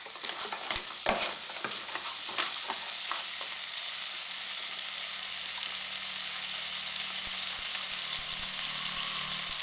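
Crab pieces and egg frying in a nonstick pot: a ladle scrapes and stirs through them for the first few seconds, then a steady sizzle goes on, slowly getting louder.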